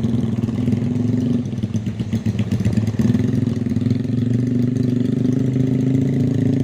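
Honda Tiger motorcycle's single-cylinder four-stroke engine running steadily. Its sound wavers unevenly for a second or so about a second and a half in, then settles again.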